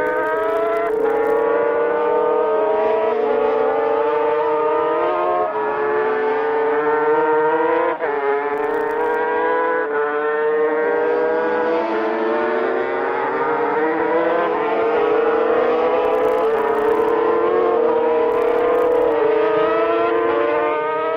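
Two-stroke Grand Prix racing motorcycles at full throttle, several engines heard at once. Each engine's high whine climbs in pitch and drops back at every gear change.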